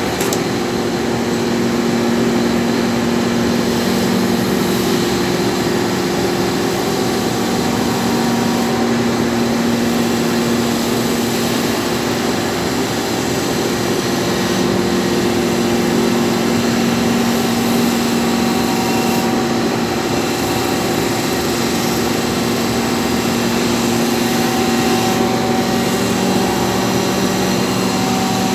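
A 1960s Snow grinder running steadily with a low hum, and a continuous rasping hiss as a steel artillery sword blade is ground against the wheel.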